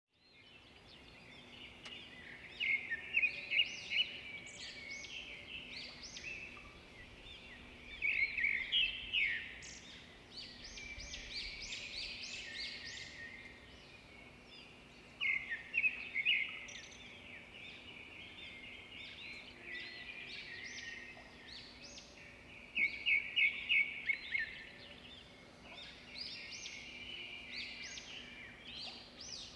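Birds chirping and twittering, with loud bursts of quick repeated notes every several seconds, over a faint steady low hum.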